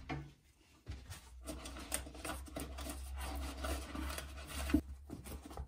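Irregular close-up rubbing and scraping of neoprene foam insulation being handled and worked by hand, with small clicks, over a low steady hum.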